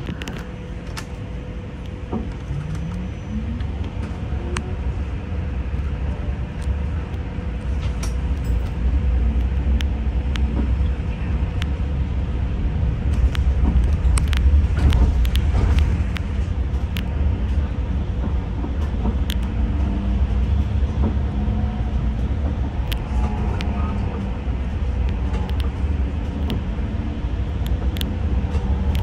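Interior of a moving bus: the low, steady rumble of the engine and tyres on the road grows louder as it gathers speed, with a faint steady hum and scattered small rattles and clicks from the cabin.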